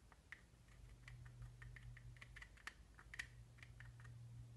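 Faint, irregular light clicks and taps of a plastic modelling tool against a plastic mould as dough is pressed into it, over a low steady hum.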